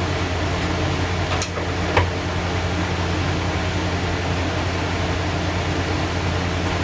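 Steady low hum with an even hiss, like a fan or air conditioner running, with two small clicks about a second and a half and two seconds in.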